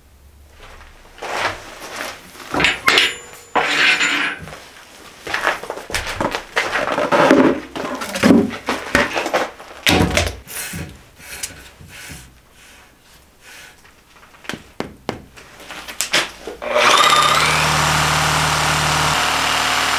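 Irregular knocks and clatter of workshop handling for most of the stretch. Then, about three quarters of the way in, a corded reciprocating saw starts with a brief rising whine and cuts steadily into a cured epoxy-resin and cork casting.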